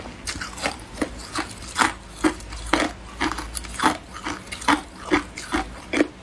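Hard ice being chewed, crunching between the teeth close to the microphone in a steady rhythm of about two or three crunches a second.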